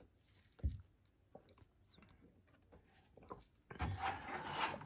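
Drinking from an opened plastic gallon jug of distilled water: a dull knock from handling the jug about half a second in and faint clicks, then about a second of louder breathy, rustling noise near the end.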